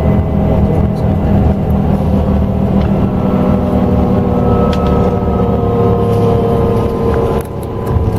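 Scania K380EB coach's engine and drivetrain running, with a steady whine of several tones coming in about three seconds in. The sound dips slightly near the end.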